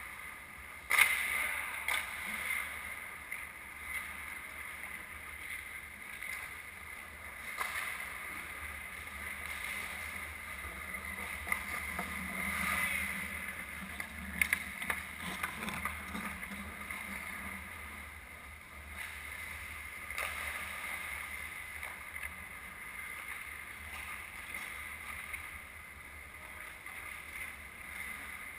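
Ice hockey rink sounds: a continuous scraping of skate blades on the ice, with a sharp knock about a second in and a few smaller knocks around the middle, typical of sticks and puck.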